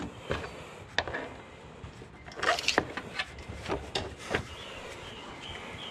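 Scattered light clicks and knocks of things being handled, busiest about two and a half seconds in.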